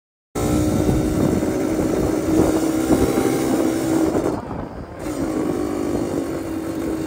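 Yamaha DT two-stroke dirt bike engine running at a steady cruise while riding, with wind on the microphone. It eases off briefly about four and a half seconds in, then picks back up. The sound begins after a moment of dead silence.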